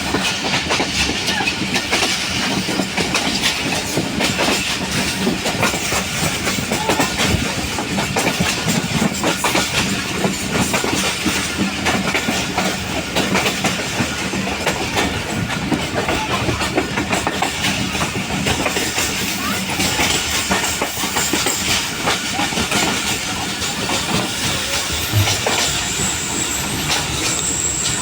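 Passenger train running on the line, with a steady rumble of wheels on rail, clickety-clack over the rail joints and rattling of the carriages.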